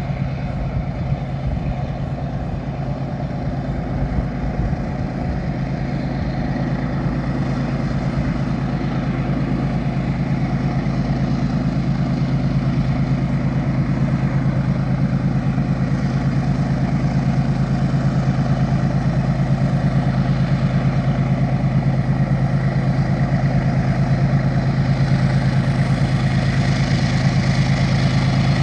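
Diesel-electric freight locomotives led by a GE ES44ACi, engines working steadily with a deep, even rumble that grows gradually louder.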